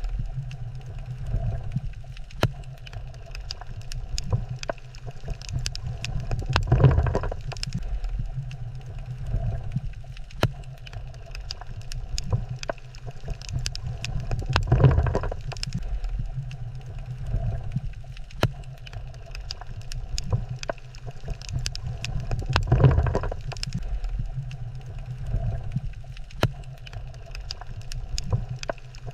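Underwater ambience on a coral reef: a low rumble of water surge that swells up about every eight seconds, with scattered sharp clicks throughout.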